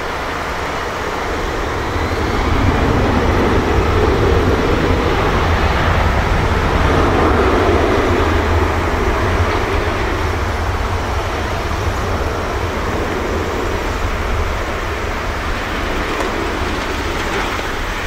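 Airbus A319-112's twin CFM56 turbofan engines at takeoff power during the takeoff roll: a loud, deep rumble that swells about two seconds in as the jet passes, then slowly fades as it moves away down the runway.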